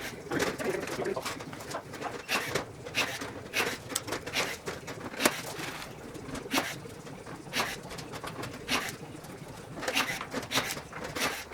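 Pull rivets being set in the aluminium bottom skin of a Rans S-21 kit aircraft: a run of sharp, irregular snaps, about one a second, as each rivet's mandrel breaks off.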